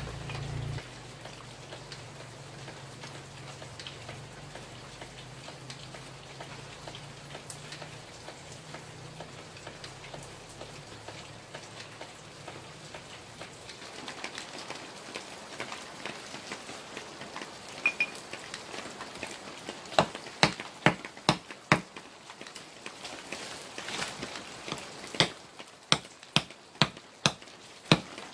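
Steady background hiss, then from about two-thirds of the way in a run of sharp strikes, one or two a second, as a large knife chops through green plant stems on the ground.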